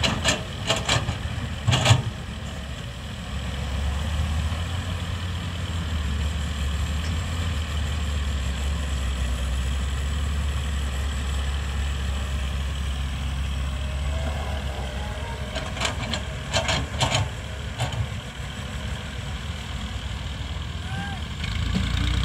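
Diesel engines of an excavator and a Massey Ferguson 240 tractor idling, a steady low drone that grows louder about three seconds in. Sharp knocks come near the start and again about two-thirds of the way through, as the excavator bucket dumps soil into the tractor trolley.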